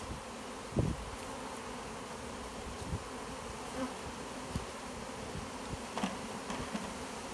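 Honey bees buzzing steadily around an open hive box, freshly shaken in from their package. Single bees fly close past every second or two, the loudest pass about a second in.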